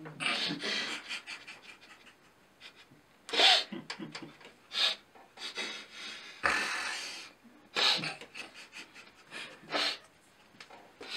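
Stifled laughter from two young men: irregular breathy puffs and wheezes with short pauses between, the strongest bursts about three and a half and six and a half seconds in.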